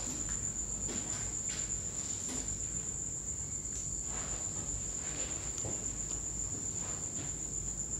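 Crickets trilling, a steady high-pitched tone that carries on without a break. A few soft steps and crunches on debris-covered tile floor sound here and there.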